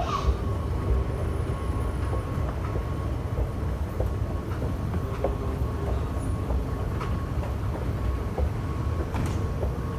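Dubai Metro train running, heard from inside the carriage: a steady low rumble with a faint, even, high-pitched tone and occasional small clicks.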